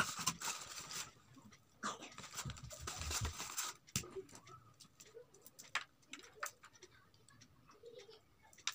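Close handling noises from food being unwrapped and handled by hand: two stretches of crinkly rustling, then scattered small clicks and taps.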